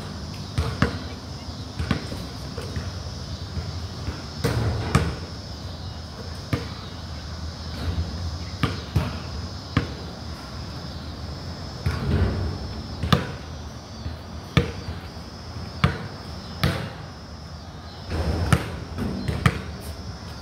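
Basketball bouncing on a concrete court: sharp single bounces and dribbles, about one a second at an uneven pace.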